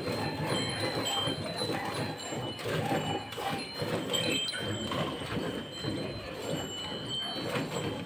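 Hand milking into a steel pail: fast, rhythmic jets of milk squirting from a cow's teats and splashing into the milk already in the bucket, with a light metallic ring from the pail.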